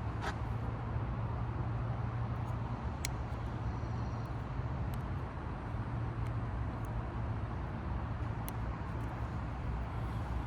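A steady low hum fills the background, with a few faint light clicks scattered through it as a pin tool works the plastic terminals of a MAF sensor connector.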